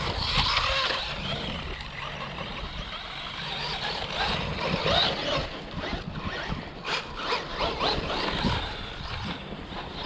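Small electric RC car being driven, its motor whining up and down in pitch with the throttle.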